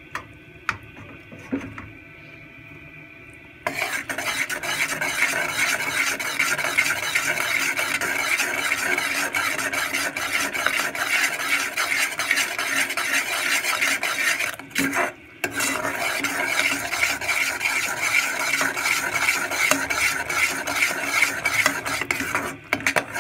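A spoon stirring and scraping around an aluminium saucepan of thick, boiling jaggery syrup, with the syrup sizzling as it cooks down to golden syrup. The stirring starts about four seconds in after a few light clicks and pauses briefly about fifteen seconds in.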